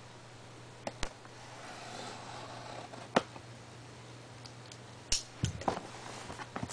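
Handling a shrink-wrapped cardboard box: a few sharp clicks and taps, then a couple of knocks about five seconds in as the box is lowered and set down, over a low steady hum.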